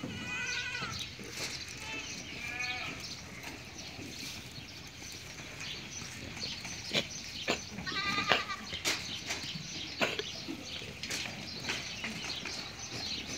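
Goats bleating, three calls: one at the start, one about two seconds in and one about eight seconds in. A few sharp knocks come in the second half.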